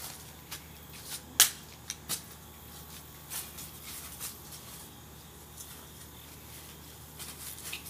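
An open flip phone thrown against a concrete-block retaining wall: one sharp crack of the impact about a second and a half in, then a smaller knock under a second later as it falls, with a few faint ticks afterwards.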